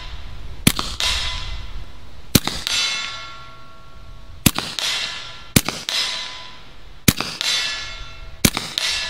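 Bintac T9 .357 PCP air pistol-carbine with a moderator firing six slow, spaced shots. Each shot is followed a fraction of a second later by the clang and ringing of the steel target as the pellet strikes it at about 60 yards.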